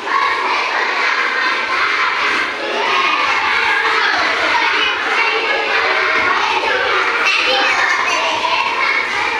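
A classroom of young schoolchildren talking and calling out all at once, a steady loud hubbub of many overlapping voices.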